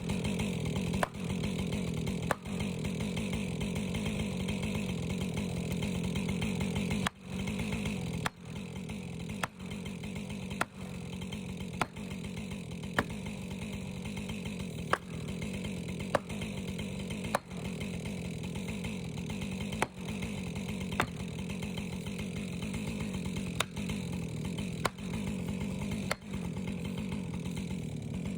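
Chainsaw running steadily under load, broken by short sharp drops and clicks about every second or so.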